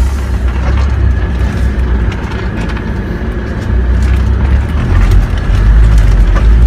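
Off-road vehicle's engine running and the vehicle rumbling over rough, rutted sand and mud, heard from inside the cab; the rumble grows louder near the end.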